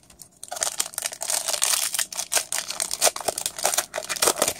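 Shiny foil wrapper of a 2011 Panini Rookies & Stars football card pack crinkling and tearing as it is pulled open by hand, a dense run of sharp crackles starting about half a second in.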